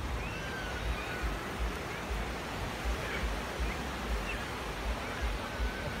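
Surf breaking on a sandy beach as a steady wash of noise, with wind rumbling on the microphone.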